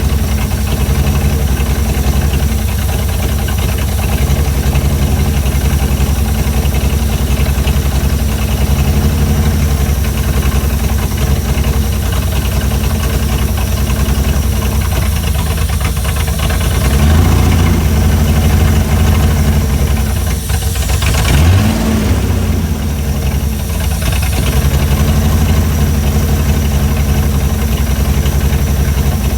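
Chrysler Hemi 265 straight-six engine idling steadily while its idle is being set. Engine speed lifts for a couple of seconds about two-thirds of the way through, then a quick rev rises and falls and it settles back to idle.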